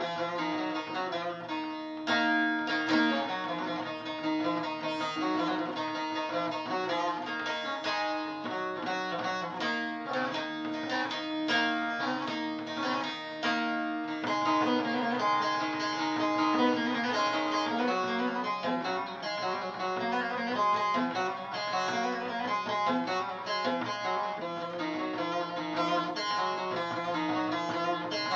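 Bağlama (saz) playing an instrumental passage of quick plucked notes, with a long held low note through the first half.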